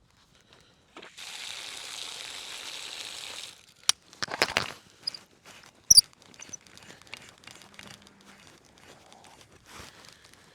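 A steady hiss for about two and a half seconds that stops abruptly, as the water is turned on into a garden hose that turns out to be frozen. Then several sharp knocks and clatters of the hose and its fittings being handled.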